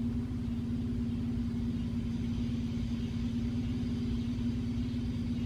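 Steady low droning hum with one held tone and a faint pulsing rumble beneath it, from the opening of an animated episode's soundtrack.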